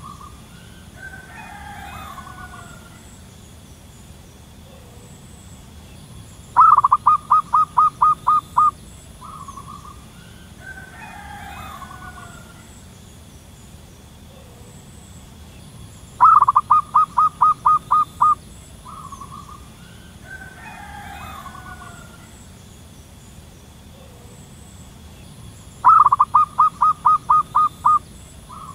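Zebra dove calling: a rapid run of about ten short clipped notes lasting some two seconds, repeated three times roughly ten seconds apart, with fainter chirping between the runs.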